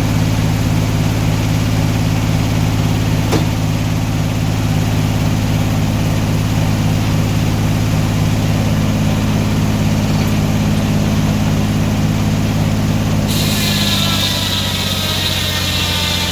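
Sawmill engine running steadily at a constant speed, with a single click about three seconds in. Near the end a higher-pitched whine comes in and the low engine hum fades.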